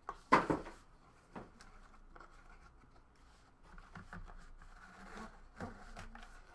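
Trading-card box and packaging being handled and opened: a brief loud rustle about a third of a second in, a click a second later, then light taps and rustling.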